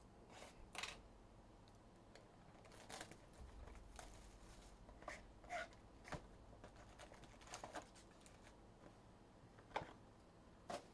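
Faint, scattered rustles and light clicks of trading cards and their packs being handled, over near silence.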